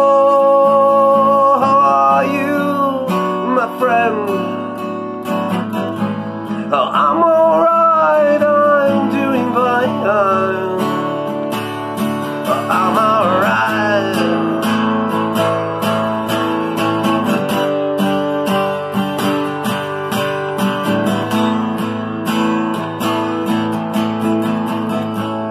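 Acoustic guitar strummed steadily through an instrumental break in a song. A held sung note opens it and wordless singing wavers over the chords in the first half; after about 14 seconds the strumming goes on alone.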